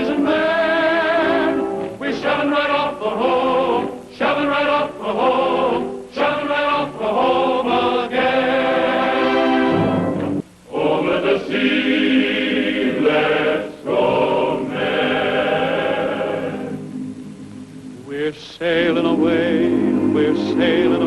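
Background music: a choir singing, with a brief softer passage about seventeen seconds in.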